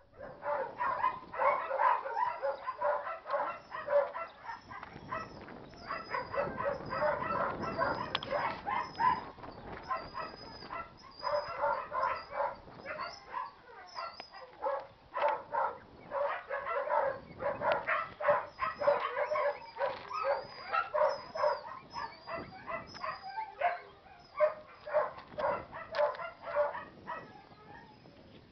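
Dogs barking repeatedly and almost without pause, with birds chirping faintly above.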